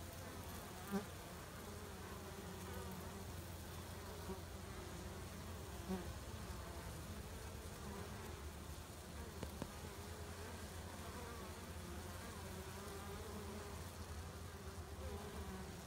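A crowd of honey bees buzzing steadily at a hive entrance, a hum of many wings with a gently wavering pitch. A short thump comes about a second in and a fainter one about six seconds in.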